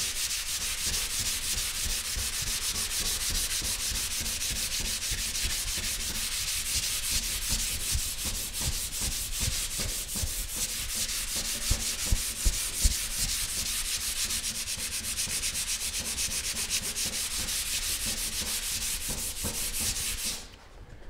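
Dry sandpaper rubbed by hand over hardened primer and guide coat on a car's steel dash panel, in quick, even back-and-forth strokes that make a steady scratchy hiss. This is block-sanding the primer flat, cutting the guide coat away to show the low spots. The sanding stops about a second before the end.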